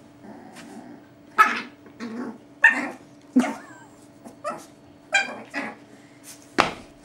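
A Chihuahua puppy and a Boerboel at play: a series of short, high yips and barks, about eight in all, the loudest about a second and a half and two and a half seconds in.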